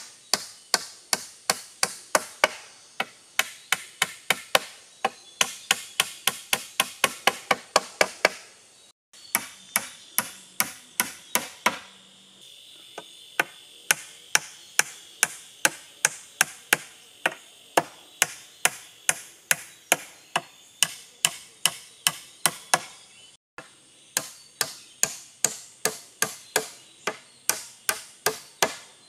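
Wood being chopped with a hand blade in quick, even strokes, about three a second, in three runs separated by two abrupt breaks.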